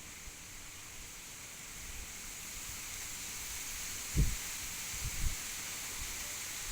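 Strong wind blowing: a steady high hiss that builds a little after about two seconds. Low thumps of wind buffeting the microphone come about four seconds in and again about a second later.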